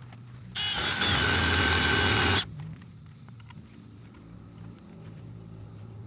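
A handheld drill with a countersink bit runs in steel for about two seconds, starting and stopping abruptly. Under it, a bulldozer's diesel engine drones steadily in the background.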